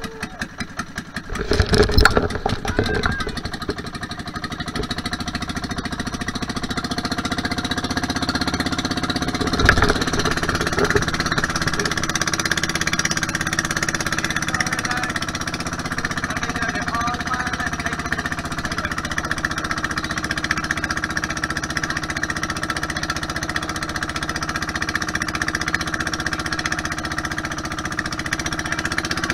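Outrigger bangka's engine running steadily as the boat travels across open water, a loud rush about one to three seconds in and a sharp knock about ten seconds in.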